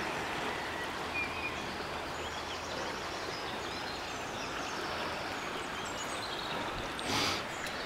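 Steady rush of the Rhône flowing past, with faint bird chirps scattered over it and a brief swell of noise near the end.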